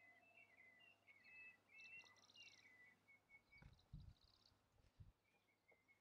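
Faint songbird singing, a run of short chirps and quick trills. A few soft low thuds come about three and a half to five seconds in.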